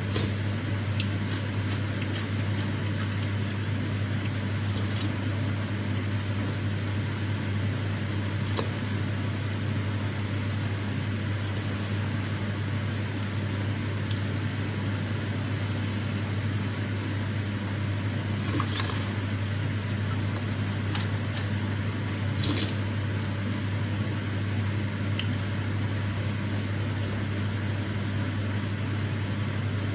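Close-up eating sounds of soupy seblak: wet slurping and chewing, with scattered light clicks of a wooden spoon and fork against a glass bowl, over a steady low hum.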